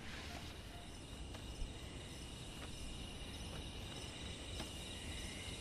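Crickets chirring, a faint, steady, high trill, with a few faint ticks.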